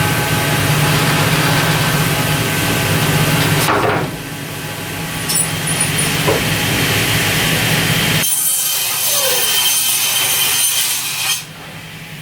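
Power saw cutting a pine board, its motor running steadily. The sound changes abruptly about 4 and 8 seconds in, and drops off sharply near the end.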